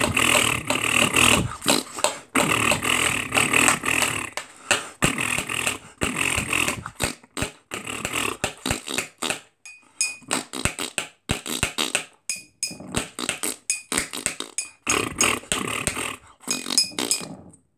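A man beatboxing: fast mouth percussion of sharp clicks and pops mixed with fuller, deeper hits. Dense at the start and again near the end, thinning to sparser clicks in the middle, and it stops just before the end.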